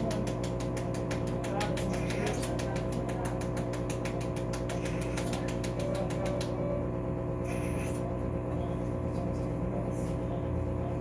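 Steady hum of operating-room equipment, with a fast, even clicking that stops suddenly about six and a half seconds in.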